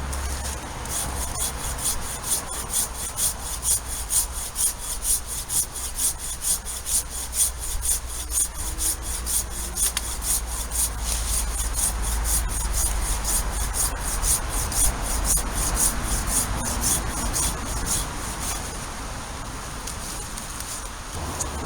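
Regular rasping strokes of a hand tool, about two or three a second, that stop near the end, over a steady low rumble.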